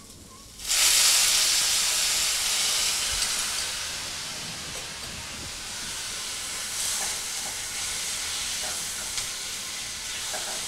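Soy sauce hitting a hot stainless-steel frying pan of sautéed squash and onion: a sudden loud hissing sizzle with steam under a second in, easing over a few seconds to a steady frying sizzle.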